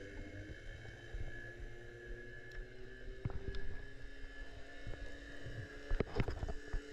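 Boat outboard motor running, heard underwater as a steady hum with several held tones. A few sharp clicks come about three seconds in and near the end.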